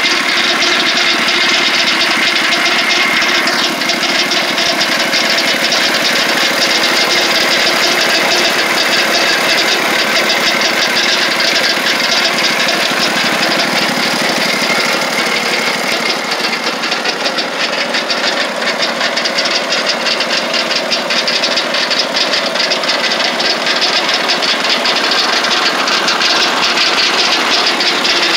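Lucas Mill 618 sawmill running steadily, its engine driving the blade through a right-angle gearbox that makes a lot of noise. The gears have a lot of lash, and the owner is unsure whether this means the gearbox needs a rebuild or is normal.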